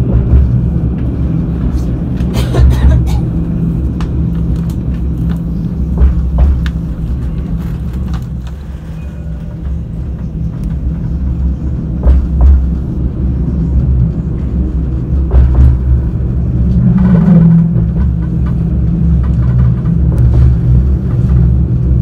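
Alstom Citadis 402 tram running on its rails, heard from inside the car: a steady low rumble of wheels and traction gear with scattered short knocks and clicks. The rumble eases for a couple of seconds a little before the middle, then builds again.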